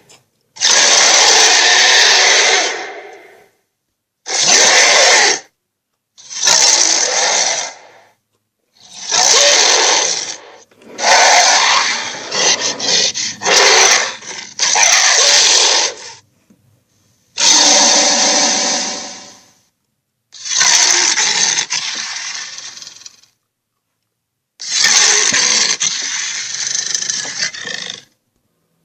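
Nightmare-monster roar sound effect, played over and over: about eight loud, noisy roars of one to three seconds each, separated by short silences, with a longer run of choppy roars near the middle.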